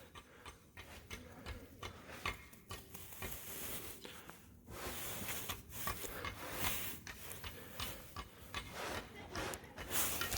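Faint, irregular clicks, knocks and rustles of hands setting up a firework shell.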